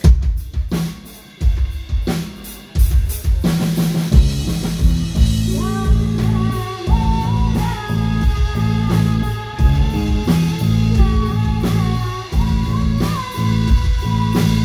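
Live band music: the drum kit plays alone at first with separate hits and fills. About three and a half seconds in, bass and the rest of the band join, and a held melody line rises in over the beat.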